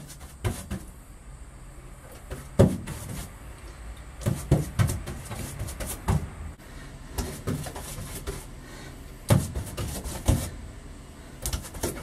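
Irregular knocks and thumps, about a dozen over the stretch, with scrubbing as a paintbrush slops POR-15 rust-preventive paint onto a car's bare steel floor pan.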